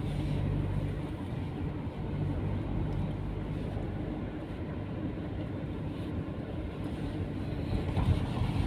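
Steady low hum of a car running, heard from inside the cabin.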